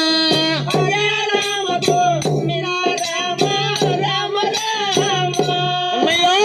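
Devotional harikatha singing: a voice sings a melody with long held and bending notes over a steady low drone, kept in time by a large double-headed drum struck with a stick and jingling hand percussion, about three beats a second.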